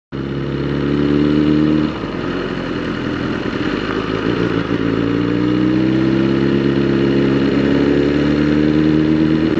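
BMW S1000RR M Sport's inline-four engine running as the bike rides slowly through traffic. Its note changes about two seconds in, then climbs slowly in pitch toward the end as the bike picks up speed.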